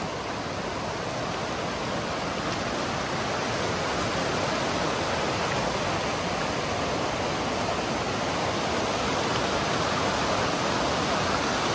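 A snowmelt-fed creek in heavy flow rushing over a shallow rock ledge in a small cascade: a steady rush of water that grows slightly louder as the cascade comes closer.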